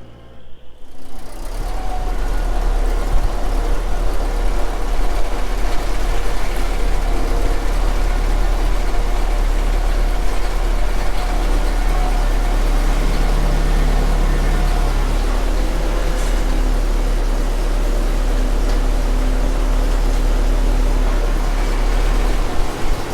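Ford 2N tractor's four-cylinder flathead engine running steadily after its rebuild, coming in about a second in after a brief dip.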